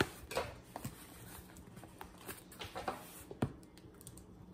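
Kitchen knife slitting the packing tape along the seam of a cardboard box: faint scraping with a few sharp taps of the blade on the cardboard, the clearest about three and a half seconds in.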